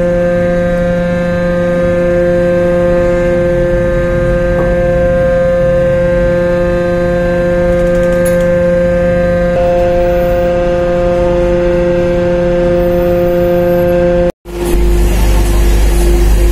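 The ferry's machinery running with a loud, steady drone of fixed pitch while the ship manoeuvres to berth. About 14 seconds in it breaks off briefly, and a deeper rumble follows with part of the same hum still in it.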